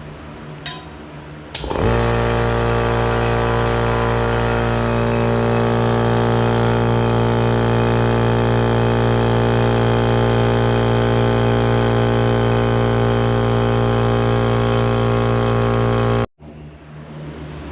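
Goodyear portable air compressor's electric motor and pump starting up on its first run: a click, then a loud steady running hum that holds even for about fourteen seconds before cutting off abruptly.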